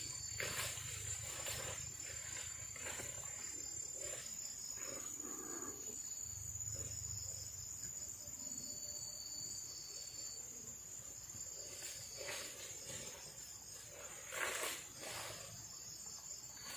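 Night insects, crickets among them, keeping up a steady high-pitched drone with a second, buzzing call that comes and goes. Scattered short knocks and rustles break in now and then, the loudest near the end.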